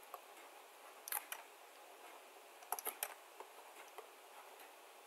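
Stylus tip tapping and clicking on a tablet while handwriting: a few sharp ticks in two small clusters, about a second in and around three seconds, with fainter single ticks between, over a faint hiss.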